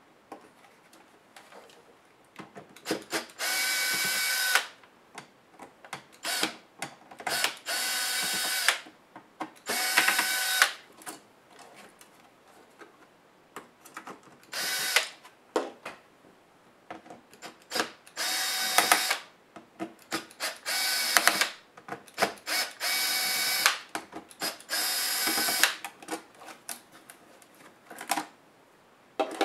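Cordless electric screwdriver whining in about eight short runs of roughly a second each, backing small screws out of a laptop's heatsink and fan, with brief trigger blips and small clicks between runs.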